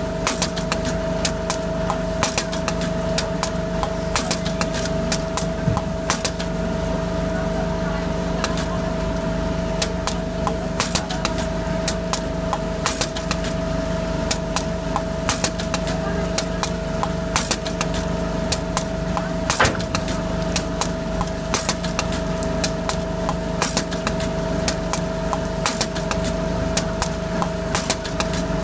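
Rossi EasyVac automatic fish vaccination machine running while vaccinating sea bass: a steady hum with sharp clicks coming irregularly, a few a second.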